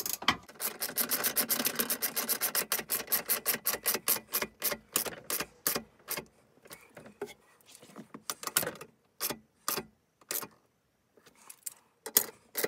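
Socket ratchet clicking as it runs bolts down into a steel console safe, a fast even clicking of about seven clicks a second, then slower, scattered clicks in the second half as the bolts are snugged down.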